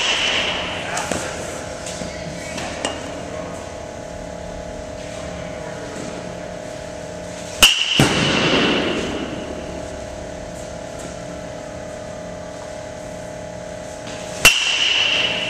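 Metal baseball bat hitting pitched balls twice, about eight seconds in and again near the end, each a sharp crack with a short high ring. A steady hum underneath.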